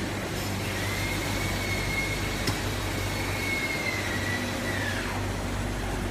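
Automatic six-head piston filling machine for sauce running with a steady mechanical noise and low hum. A whine rises about a second in, holds, and falls away near the end, and there is a single sharp click midway.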